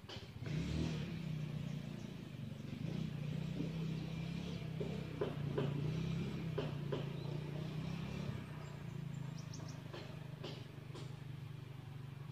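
A small engine running steadily with a low, slightly wavering hum, with scattered faint clicks over it.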